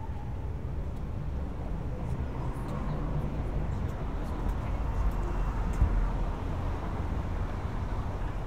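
City street ambience: a steady low rumble of traffic, rising for a moment a little past halfway.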